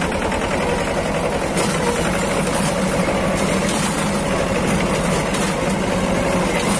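Mahindra Jivo 245 DI 4WD tractor's two-cylinder diesel engine running steadily as the tractor drives along, heard close up from the driver's seat.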